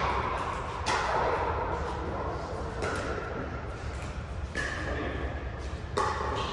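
A pickleball rally: about five sharp pops of paddles hitting a hard plastic pickleball, one to two seconds apart, each with a short echo in a large hall.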